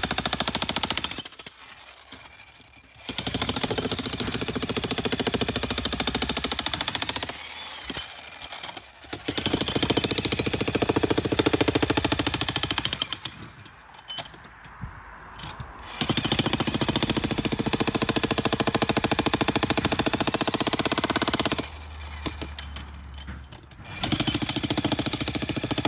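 Bosch Brute Turbo electric breaker hammer pounding concrete in runs of several seconds, stopping briefly between runs as the bit is repositioned.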